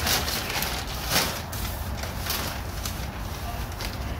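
Thin plastic shopping bag rustling and crinkling in gloved hands, in short irregular crackles, as grease and gunk from a gas grill's drip tray go into it.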